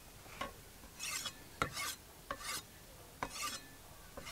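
Large knife's blade scraping with short rasping strokes, five or six in a row with brief gaps between.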